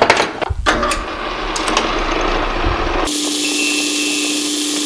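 Metal lathe turning a small brass part while a cutting tool breaks its edges, with scraping and clicking. About three seconds in it cuts abruptly to a steady high hiss with a constant whine: the parting-off cut, sped up.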